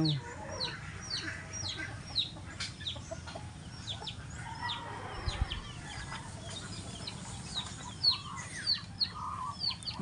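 Birds chirping: short, high notes that sweep downward, repeated about twice a second, with a few lower clucks from chickens among them.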